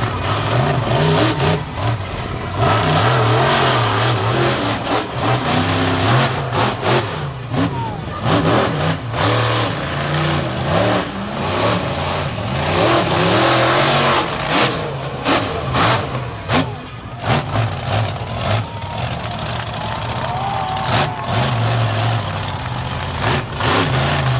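Monster truck engine revving hard and dropping off over and over during a dirt-arena freestyle run, with repeated sudden throttle lifts.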